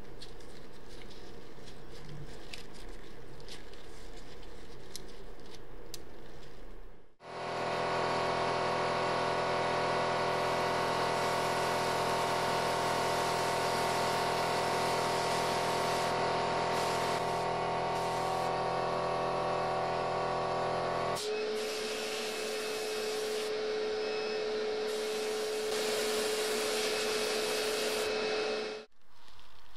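Faint clicks of a metal latch being handled, then an air die grinder with a pink grinding stone running loud and steady as it grinds the rusty latch, a whine of several steady tones over a hiss. About two thirds of the way through the sound changes to a single steady tone over the hiss, and it stops suddenly near the end.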